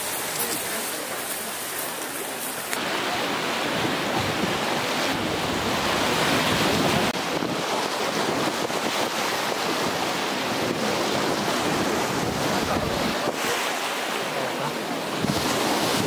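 Sea waves washing and breaking around the rocks along the shore, a steady rushing surf, with wind noise on the microphone.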